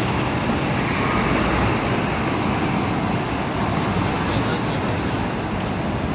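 Busy city street traffic: a steady wash of engines and tyre noise from passing vehicles, with a faint murmur of pedestrians.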